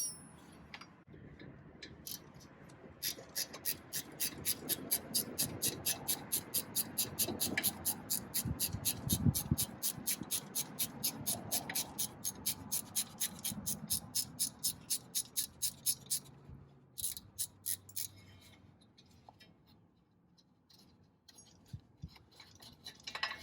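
Ratchet wrench clicking rapidly and evenly, about four clicks a second, as it backs out one of the bolts that hold a Jeep Wrangler JK's wheel bearing hub assembly to the spindle. The clicking stops near the middle, with a few more clicks near the end.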